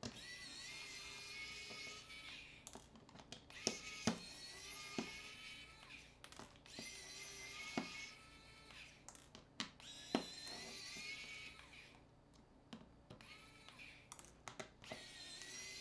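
Background music with a few sharp clicks, from a small screwdriver and screws on a smartphone being taken apart.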